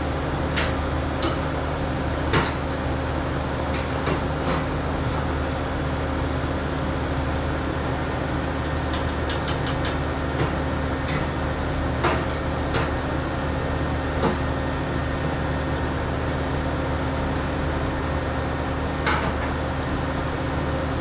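Blowtorch burning steadily into a homemade drum forge: an even rushing noise with a low hum. Scattered clicks and knocks sound on top, with a quick run of ticks about nine seconds in.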